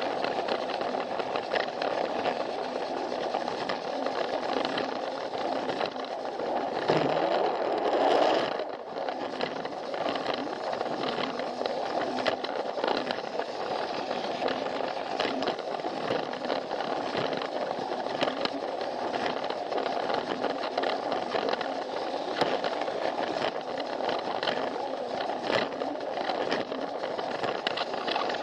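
Plarail toy train's small battery motor and gears whirring steadily as it runs along plastic track, with frequent light clicks from the wheels over the track joints. It grows louder for a second or so about seven seconds in.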